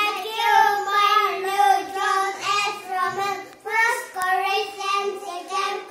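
Two young boys singing together in a sing-song chant, the list of the books of the New Testament that they have just announced.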